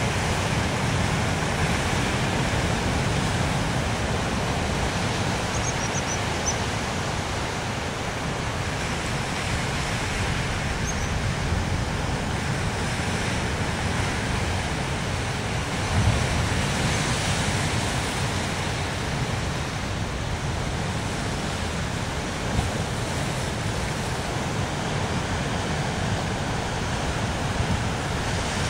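Sea surf breaking and washing over a rocky shore, a steady rushing noise with a slightly louder surge about halfway through.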